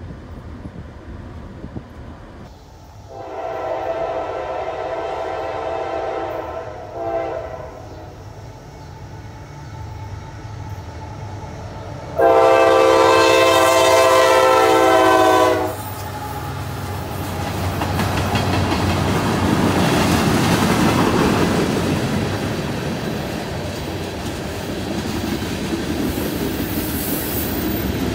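CSX diesel freight locomotive horn: a long blast about three seconds in with a short one near seven seconds, then a much louder, close blast of about three seconds starting around twelve seconds in. After it, the rumble and wheel clatter of a freight train passing through a grade crossing.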